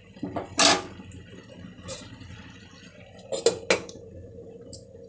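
Metal cookware clanking: a sharp clank just under a second in, a lighter one near two seconds, and a pair about three and a half seconds in as an aluminium lid is set over a steel kadai on the gas stove.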